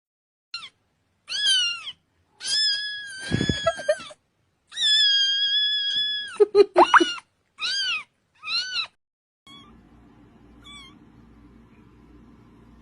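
A cat meowing again and again in high-pitched calls: short arching meows, with two longer drawn-out ones among them. Over the last few seconds the calls turn faint, with a low steady hum beneath them.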